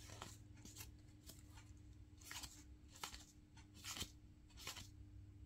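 Faint soft swishes and light clicks of baseball cards being slid one behind another in the hand as a stack is flipped through, about eight strokes, over a low steady hum.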